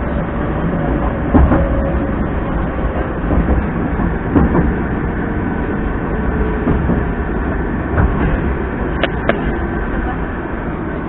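Moscow metro train running, heard from inside the carriage: a steady rumble of wheels on rails with a few short knocks, and a faint whine that sinks slowly in pitch over the first few seconds.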